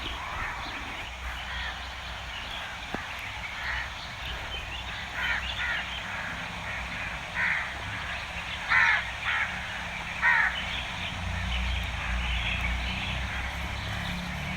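A series of short bird calls, about seven in all, bunched in the middle, over a steady low rumble of outdoor background noise.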